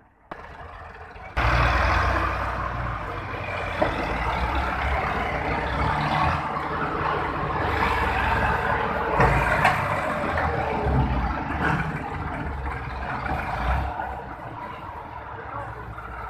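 Tractor diesel engine running hard under load, pulling a trolley loaded with bricks whose rear wheel is dug into soft ground. It comes in suddenly about a second and a half in and then surges unevenly.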